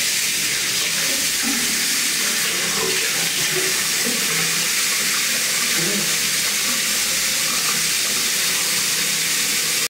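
Bathroom tap running steadily into a sink, a strong even hiss of water, which cuts off suddenly at the end.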